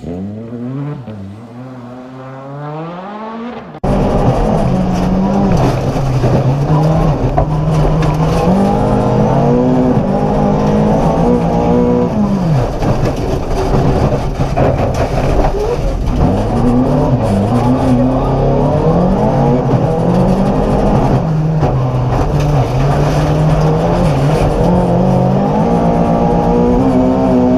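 Volvo 240 rally car engine at full throttle on a stage, revs climbing and dropping repeatedly through gear changes. It is fainter at first, then suddenly much louder about four seconds in.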